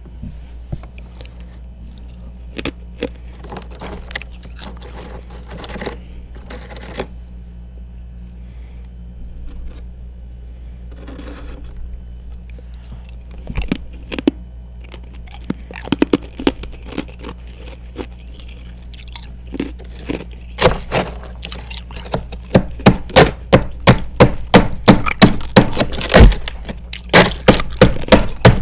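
Frost and ice being eaten close to the mic: scattered crackly crunches and scrapes at first, then from about two-thirds of the way in, steady loud chewing crunches, about three a second.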